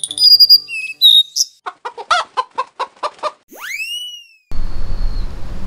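Logo-sting sound effects: a few quick high chirping whistles, then a run of about eight hen-like clucks, then a whistle that swoops sharply upward. About four and a half seconds in it cuts abruptly to steady outdoor background noise with a low rumble.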